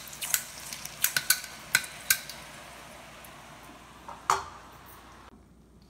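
Murukku dough frying in hot grapeseed oil in a steel pan: a steady sizzle with sharp crackles and pops over the first two seconds, then the sizzle thins. A single ringing metal clank comes about four seconds in.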